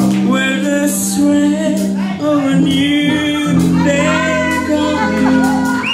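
Pop song with singing over steady chords and guitar.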